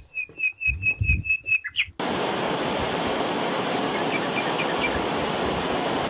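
A bird chirping a quick run of about eight short, even notes over a few low thumps; about two seconds in this cuts suddenly to the steady rush of a mountain stream tumbling over rocks, with a few faint chirps above the water.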